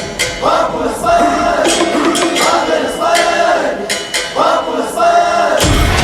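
Music with sung or chanted vocal phrases repeating about once a second; the bass drops out and comes back in near the end.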